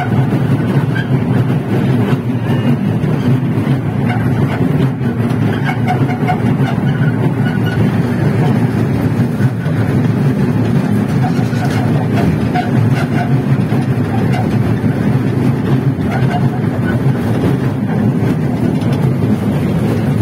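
Park toy train running at a steady pace, a continuous low rumble heard from on board.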